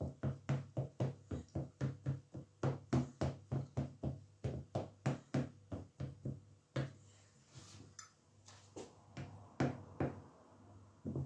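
A fork pricking a pastry base in a tart dish, each jab a short dull thud, about four a second. About six and a half seconds in, the steady jabbing stops, leaving a few scattered knocks.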